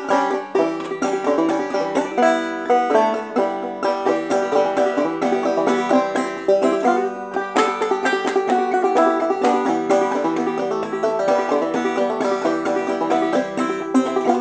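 Solo five-string banjo played clawhammer style: a steady, unbroken run of bright plucked notes and struck strings.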